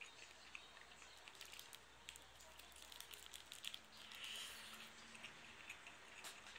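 Faint chewing of a rice ball, with a scatter of small mouth clicks and smacks and a brief soft rustle about four seconds in.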